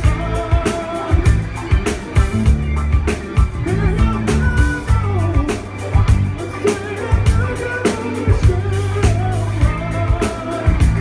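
Live band playing a funky soft-rock groove on drum kit, bass and electric guitar, with singing over it.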